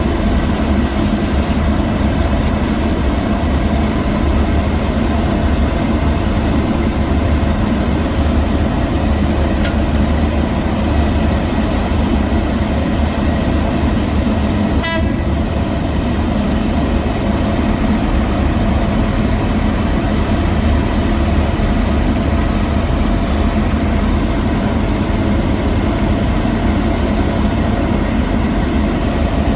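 Heavy diesel road-construction machinery running steadily, with a brief sharp click or rattle about halfway through.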